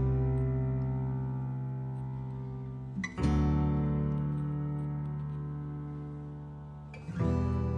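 Background music of slow acoustic guitar chords. Each chord is strummed once and left to ring and fade, with a new one about every four seconds.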